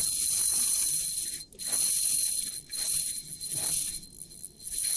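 Spinning fishing reel whirring in repeated high-pitched bursts of about a second each, with short breaks between, while a hooked fish is played on the bent rod.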